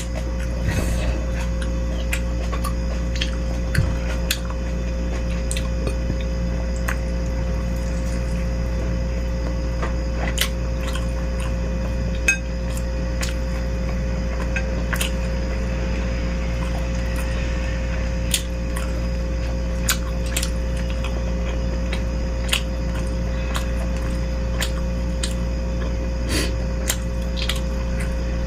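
Spoon and fork clinking against a bowl of beef-rib meatball soup, in scattered sharp clicks a second or two apart, over a steady low background hum.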